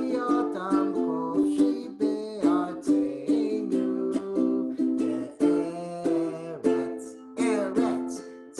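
Ukulele strummed in a steady rhythm of chords, about two strums a second.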